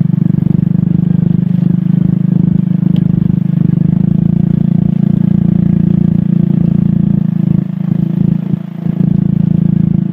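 Small motorcycle engine running steadily under way, easing off briefly a couple of times near the end.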